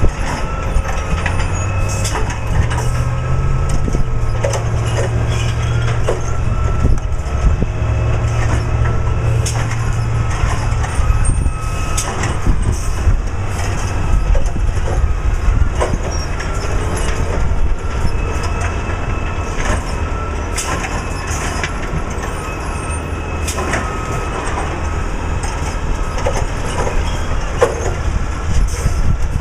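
Recycling truck's diesel engine revving up about a second in, holding high for several seconds, then dropping back to a lower run, with scattered knocks and bangs as the recycling containers are emptied.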